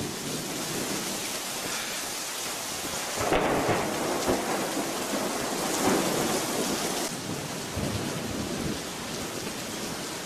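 Heavy rain falling steadily during a thunderstorm, with thunder rumbling and swelling louder about three seconds in and again around six seconds.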